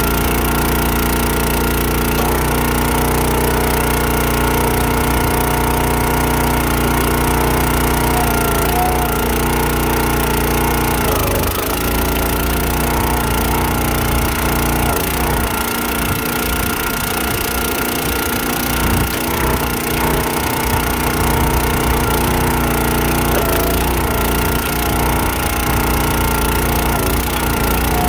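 Countyline 25-ton log splitter with its small gas engine running steadily, driving the hydraulic ram as it pushes rounds through the wedge. Its low note breaks up and wavers partway through while the ram works under load, with wood cracking as the logs split.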